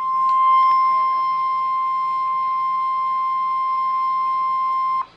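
Emergency Alert System warning alarm tone: one steady tone of about 1050 Hz, the NOAA Weather Radio alert signal that comes before a National Weather Service warning message, cutting off abruptly about five seconds in.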